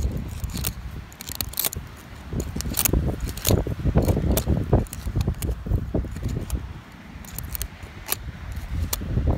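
Metal screwdriver scraping and prying in dry, gritty sandy soil, with irregular scratchy crunches and clicks as weeds are dug out, over a low rumble.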